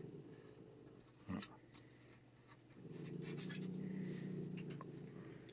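Low, rumbling growl from a fearful, aggressive cat, in two long stretches with a pause of about two seconds between them. A single sharp click comes in the pause.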